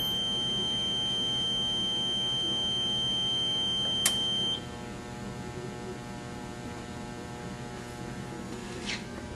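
Steady high-pitched electronic buzzer tone over a low electrical hum. A sharp click comes about four seconds in, and the buzzer cuts off half a second later, leaving the hum and a faint click near the end.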